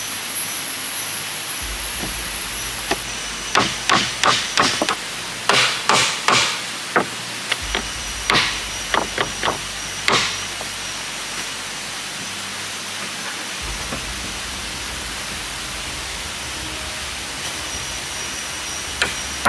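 Hatchet knocking on the wooden boards of a shelter roof: runs of quick strikes, about four a second, through the first half, then a stretch of steady hiss with no strikes, and the knocking starts again at the very end.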